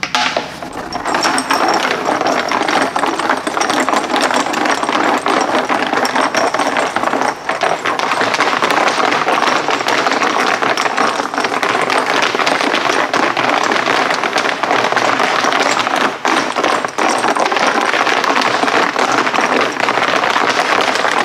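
Plastic fuel tank of a Polaris Trail Boss 250 ATV shaken hard by hand with its cap on, giving a dense, continuous rattle from inside.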